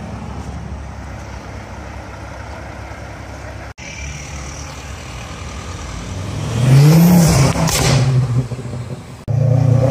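Steady road traffic running, then a car accelerates hard past with its engine revving up loudly for about two seconds, its pitch rising and then dropping away.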